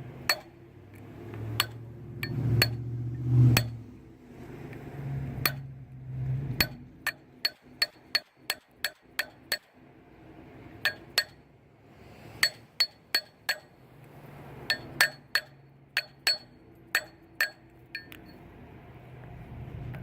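Hammer blows on metal while working the bearing into the AC compressor pulley: about three dozen sharp, ringing strikes in uneven runs, some in quick succession.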